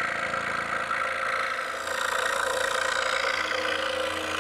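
DeWalt scroll saw running steadily, its blade stroking rapidly up and down as it cuts a curve through a wooden board.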